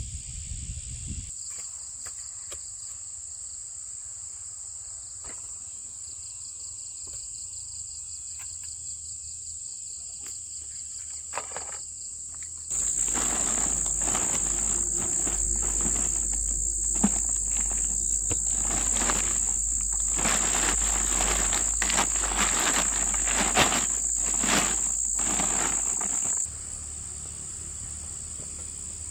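Insects chirring steadily at a high pitch. About halfway through the chirring suddenly gets louder, joined by irregular rustling and knocks, then drops back shortly before the end.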